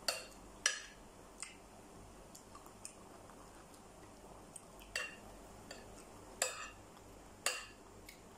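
Metal spoon clinking against a plate about six times, in single clinks with a short ring, spread irregularly.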